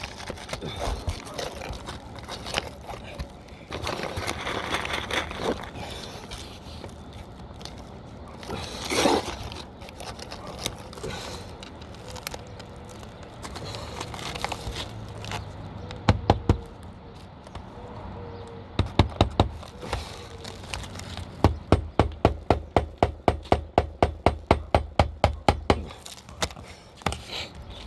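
Asphalt roof shingles scraping and crackling as they are lifted and handled, then a hammer driving a roofing nail under a lifted shingle: a few single blows, then a fast, even run of strikes, about four or five a second, near the end.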